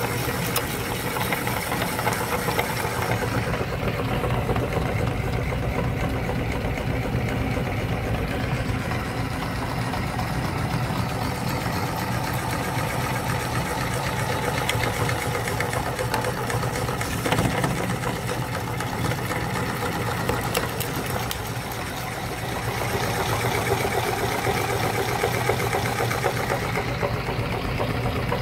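Electric meat grinder motor running steadily with a low hum while its auger grinds frozen ice cream bars and forces them through the grinding plate. A single sharp knock a little past halfway.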